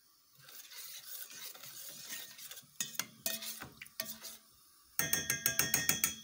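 A utensil stirring and scraping in a mixing bowl, then a few sharp knocks, then about a second of rapid ringing clinks against the bowl near the end, around seven a second.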